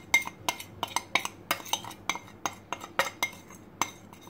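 Quick, irregular clinks and taps of dishware, about three or four a second, as ground spices are tapped and scraped off a ceramic plate into a glass bowl.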